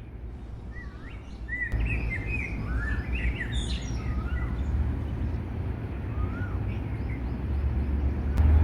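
Several small birds chirping and twittering over a steady low rumble. The chirps are busiest in the first half and thin out later, while the rumble grows louder near the end.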